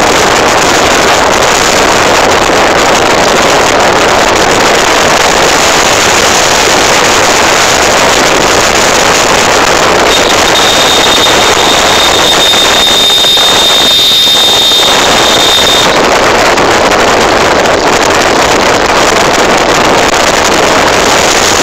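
Loud wind rush and road noise from a moving vehicle, with wind buffeting the microphone. About ten seconds in, a thin high whine joins for about six seconds and then stops.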